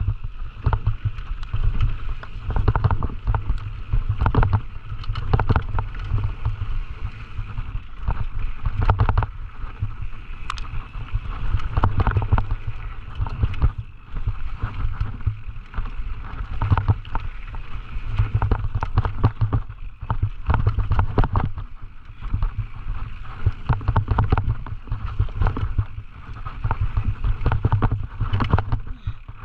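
Scott Gambler 920 downhill mountain bike running over rough trail: a dense, irregular clatter of knocks and rattles from the bike over a steady rush of noise. Wind rumbles heavily on the microphone, swelling and fading with speed.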